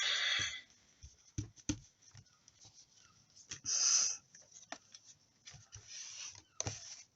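Water spritzer bottle misting water onto the inked paper in short hissing sprays: one at the start, a louder one about four seconds in and a fainter one near six seconds, with light taps and knocks of handling between.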